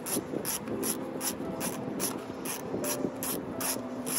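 Background music: a steady beat of short hissy hi-hat-like strokes, about four a second, over low sustained tones.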